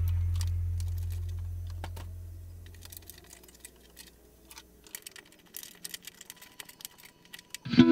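Background music ending on a low held note that fades away over about three seconds, then faint, irregular small clicks and taps, with guitar music starting again near the end.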